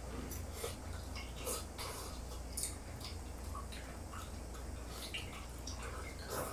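Eating noises: irregular small clicks and wet smacks of chewing and of chopsticks working food out of a bowl, over a low steady hum.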